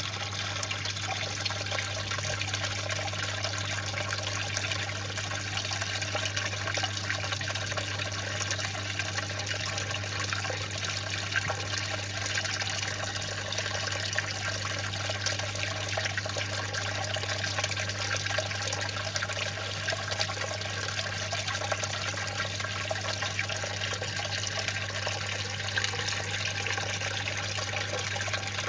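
Water in a fish tank trickling and bubbling steadily over a constant low hum from its pump.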